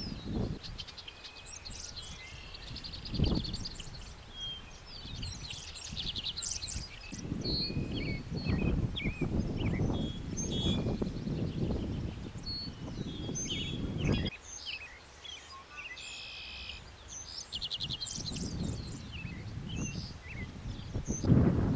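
Several songbirds chirping and trilling, with gusts of wind rumbling on the microphone that come and go, strongest through the middle of the stretch.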